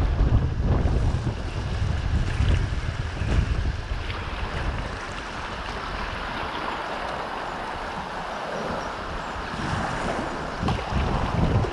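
River rapids rushing around a whitewater kayak, with wind buffeting the microphone. The low buffeting eases after about four seconds, leaving the steady hiss of the whitewater, and comes back near the end.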